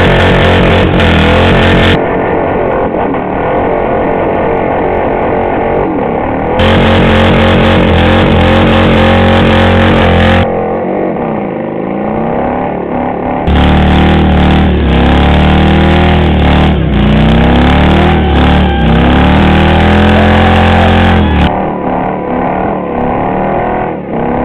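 Chopper motorcycle engine held at high revs during a burnout, its rear tyre spinning on concrete; the revs sag and climb again a few times.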